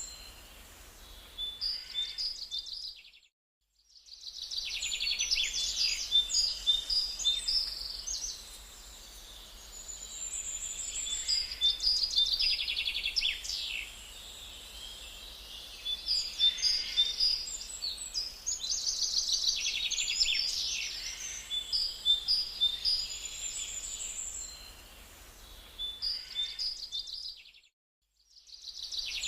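Several birds chirping and trilling in quick repeated phrases over a steady background hiss. The sound cuts out completely twice for about a second, once near the start and once near the end.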